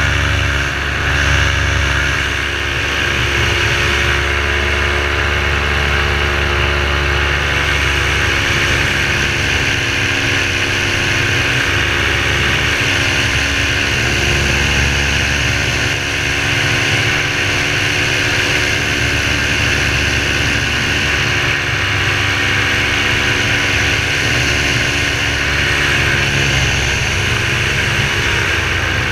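Parajet V3 paramotor's two-stroke engine and propeller running steadily in flight, its pitch falling near the end as the throttle is eased.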